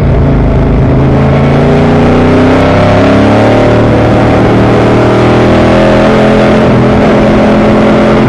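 Vintage race car's engine heard from inside the car, pulling hard with its pitch climbing steadily as the car accelerates.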